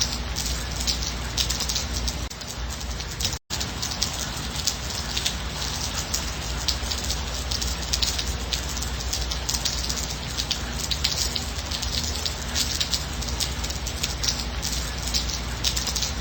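Steady rain falling, a dense patter of many small drops hitting a surface. The sound cuts out completely for a split second about three and a half seconds in.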